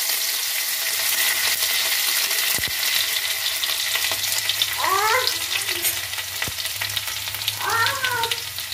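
Chopped garlic and ginger sizzling in hot oil in an iron kadai, a steady crackling fry. A short rising-and-falling call sounds twice, about five seconds in and near the end.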